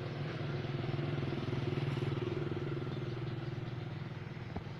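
An engine running steadily, getting a little louder about two seconds in and then easing off.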